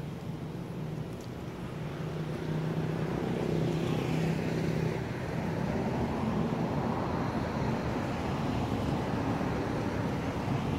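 Road traffic: a motor vehicle's engine hum with tyre noise, swelling about two to four seconds in as it passes and staying loud.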